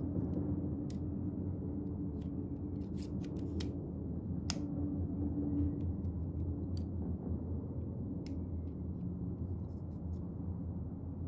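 Metal lightsaber hilt parts clicking and tapping against each other as they are handled and fitted together, a few scattered clicks with a sharper one about halfway, over a steady low hum.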